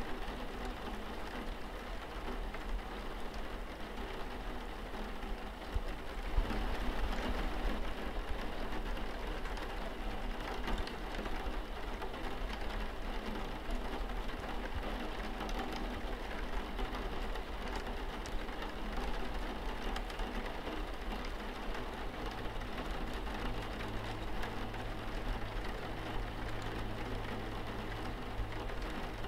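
Steady rain pattering on window glass, with a low steady rumble underneath; the rain grows a little heavier about six seconds in.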